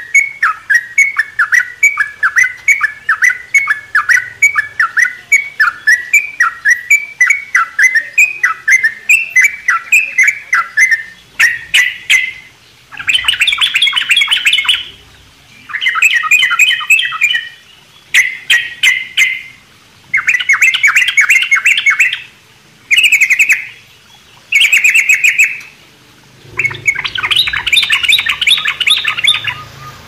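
Yellow-vented bulbuls singing: a quick run of short down-slurred chirps, about three a second, then for the second half dense bursts of rapid, bubbly chatter, each a second or two long with short pauses between.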